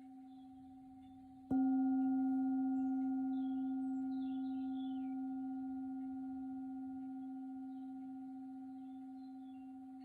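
Tibetan singing bowl tuned to C, struck once about a second and a half in and left to ring. Its steady tone fades slowly, and the previous strike is still ringing faintly before the new one.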